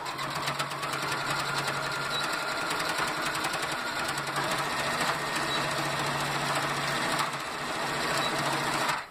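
Electric sewing machine stitching a seam across a fabric bag strap, running steadily with a fast, even patter of needle strokes and a low motor hum. It stops suddenly just before the end.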